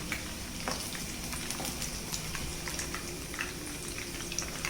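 Chicken balls frying in hot oil in a pan: a steady sizzle with scattered small crackles and pops.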